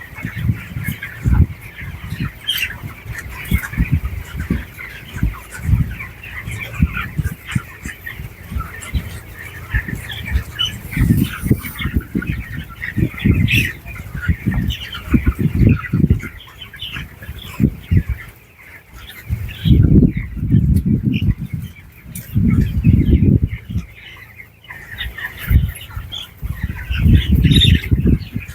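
A flock of broiler chickens in a poultry house, many birds cheeping and clucking at once, with irregular low rumbling thumps that swell loudest near the two-thirds mark and again near the end.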